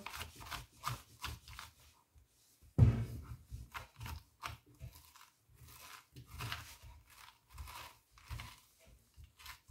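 Metal spoon scraping seeds and stringy pulp out of a halved raw pumpkin: a run of short, irregular scrapes and wet crunches, the loudest about three seconds in.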